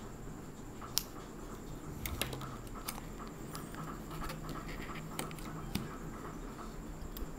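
Hands and a small tool working on the parts of an opened iPod Classic: about six short, sharp clicks, the loudest about a second in, over light scraping and handling.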